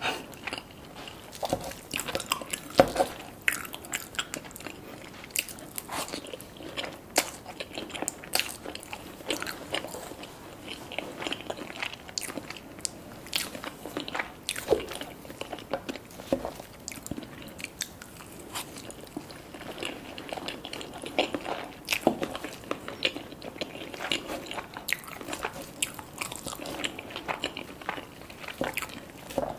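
A person eating close to the microphone: irregular crunchy bites and chewing of crisp food.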